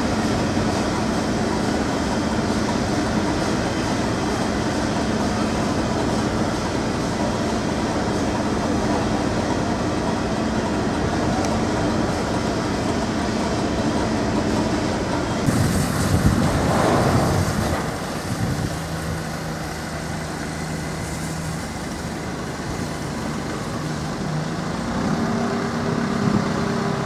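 Steam locomotive on the line by the platform: a steady hiss and rumble with a low hum, swelling into a loud rush of noise about sixteen seconds in. After that comes a quieter, different steady hum.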